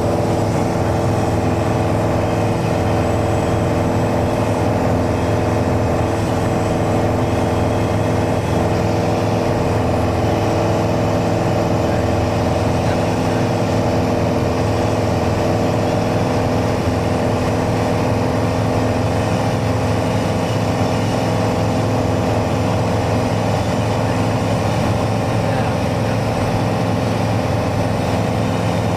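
Mooney single-engine light aircraft in flight, its piston engine and propeller running at a steady, unchanging pitch, heard from inside the cabin.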